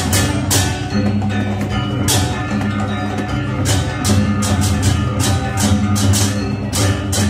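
Balinese gamelan music: ringing pitched metal tones over sustained low tones, with quick sharp percussive strikes throughout.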